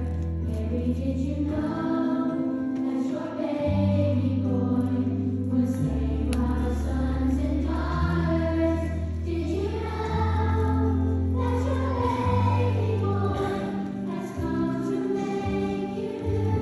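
Children's choir singing together with an instrumental accompaniment whose low notes are held for a second or two each.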